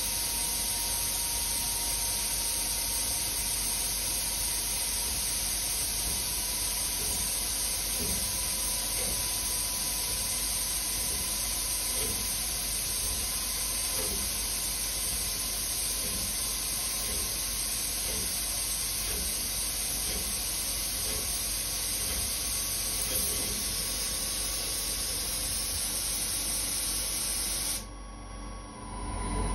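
Steady hiss of a CNC mill's coolant nozzle jet blowing at the nylon stock while it is being turned, cutting off suddenly near the end as the cut finishes.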